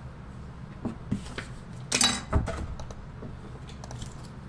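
Trading cards and their packaging handled on a table: a few light clicks, then a louder short rustle or knock about two seconds in.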